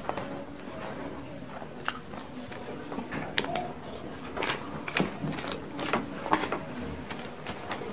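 Close-miked chewing and wet lip-smacking of a mouthful of rice eaten by hand, with fingers working rice on the paper wrapping. There is a run of short sharp smacks in the second half.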